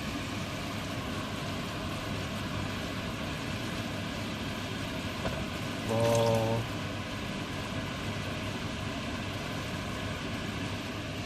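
Steady hiss from a pan as cups of boiling water are poured onto fried onions and potatoes for basmati rice. A child's voice counts "four" about six seconds in.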